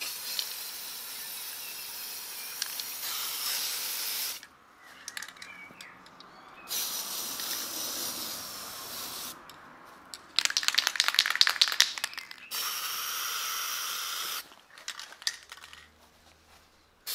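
Aerosol spray paint cans hissing in three long bursts as paint is sprayed onto the water surface in a bucket to lay a pattern for hydro dipping. Between the second and third bursts comes a quick rattling, about two seconds long.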